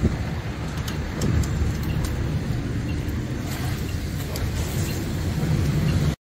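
Steady low rumble of a fire engine's pump running as the attack line flows water through a hose stream, with a few faint clicks; it cuts off abruptly near the end.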